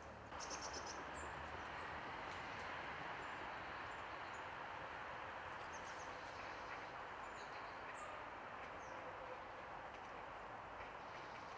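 Short, high bird chirps scattered throughout over a steady, even background noise that steps up just after the start.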